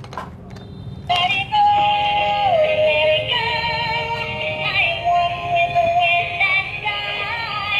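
Battery-powered swan lantern toy switched on, its built-in sound chip starting an electronic melody with a synthesized singing voice about a second in.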